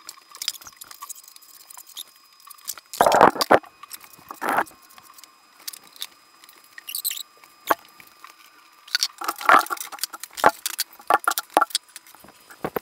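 Irregular rustling, crinkling and clicking from things being handled, with a few louder scraping rustles about three, four and a half and nine and a half seconds in.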